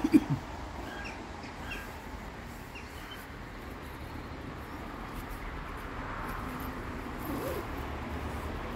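Two loud knocks right at the start, then a steady outdoor background hum with a few faint bird chirps in the first few seconds.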